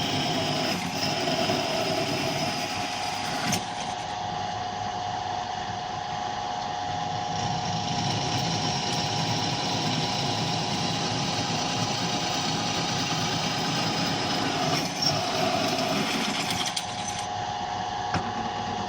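NS-12 bench drill press running steadily under load as a 10 mm bit is fed hard into a 6 mm plate, its capacitor-run motor giving a steady hum. A single sharp click comes about three and a half seconds in.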